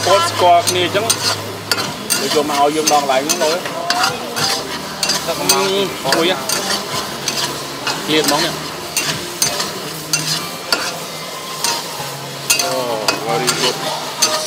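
Squid stir-frying in a hot wok: a steady sizzle with a metal ladle scraping and clattering against the pan again and again as the food is tossed.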